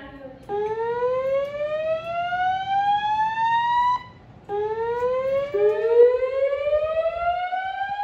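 Fire alarm speakers sounding the slow whoop evacuation tone from a Notifier 3030 panel's DVC voice evacuation system: loud rising sweeps, each about three and a half seconds long. The first starts about half a second in, and the later sweeps overlap briefly.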